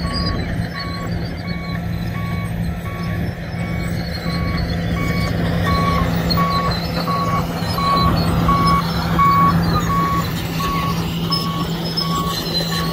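Tracked bulldozer's backup alarm beeping at an even pace, about three beeps every two seconds, over the steady running of its diesel engine.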